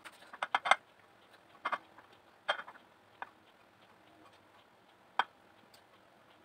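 Sharp taps and knocks of fingers and brownie pieces against a glass baking dish as the pieces are set in: a quick run of clicks in the first second, then single taps about once a second.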